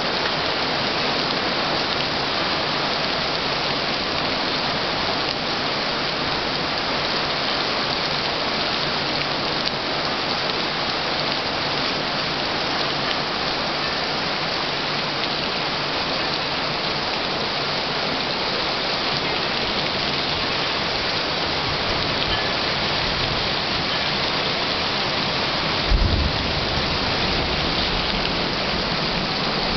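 Heavy rain pouring steadily in a thunderstorm. Near the end, a sudden clap of thunder is followed by a low rumble.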